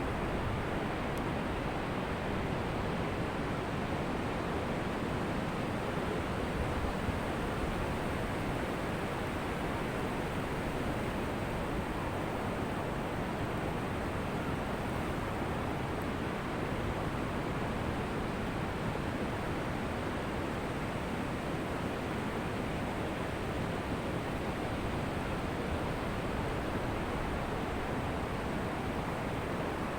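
Ocean surf breaking on a beach: a steady rush of waves, with no single crash standing out.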